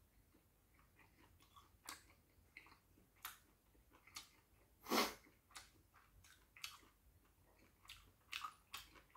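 Faint chewing with irregular wet mouth smacks and small clicks, one louder about five seconds in.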